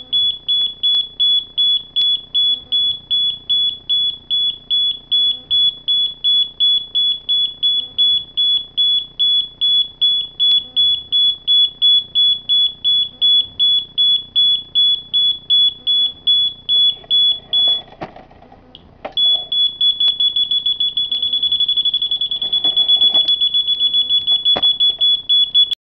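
High-pitched electronic beeping in an even rhythm of about three beeps a second. It stops for about a second near the three-quarter mark, then resumes with the beeps coming faster, almost running together.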